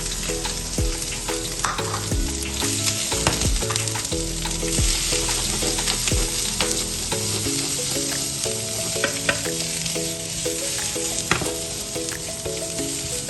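Food sizzling in hot oil in a pan and being stirred, with scattered scrapes and clicks of the spatula. Background music with repeating notes plays underneath.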